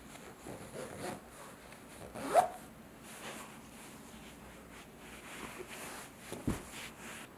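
Zipper on a sherpa fleece cushion cover being pulled shut, with one short, loud zip about two seconds in, amid hands rubbing and patting the fleece. A soft thud near the end as the cushion is handled.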